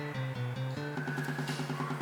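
Background music with a steady beat; a short stepping bass figure in the first second gives way to an even, repeating pulse.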